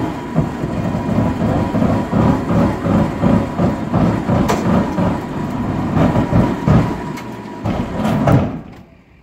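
A winch dragging a large wooden shed up onto a flatbed trailer: a loud, heavy rumble that pulses unevenly several times a second, stopping abruptly near the end.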